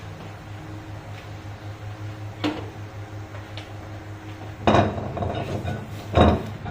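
Cookware being handled: a light knock, then two louder clanks with a short ring, over a steady low hum.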